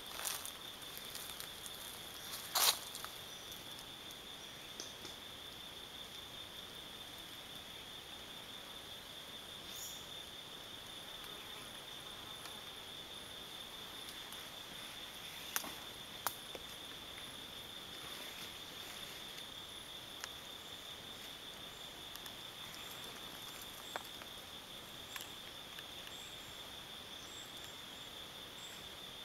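A steady, high-pitched insect trill, with the even pulsing of a cricket-type chorus, runs throughout. A few sharp clicks break in over it, the loudest about three seconds in.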